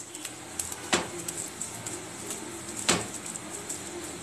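Handling noise as boiled grated daikon is pressed by hand in a plastic colander to drain its water, with three sharp knocks over a steady hiss.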